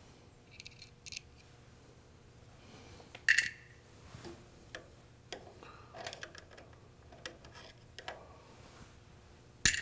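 Small flat-blade screwdriver picking at the steel E-ring on a washer's transmission pulley shaft: scattered light metal clicks and scrapes, with a sharp metallic snap about three seconds in and another near the end.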